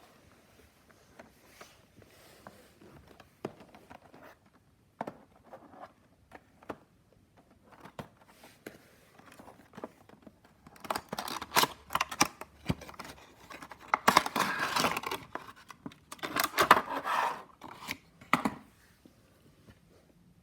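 Toy packaging being opened by hand: faint clicks and handling at first, then about seven seconds of loud crinkling and tearing of the packaging from around the middle.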